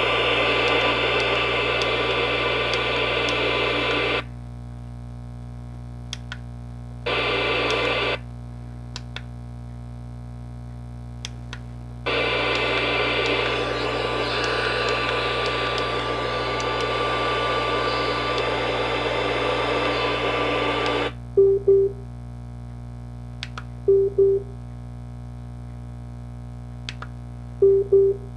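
FM radio static hissing from a small Bluetooth speaker alarm clock with no station tuned: reception is poor. The hiss comes in stretches of several seconds and cuts out in between, over a low steady hum. Near the end there are three short double beeps.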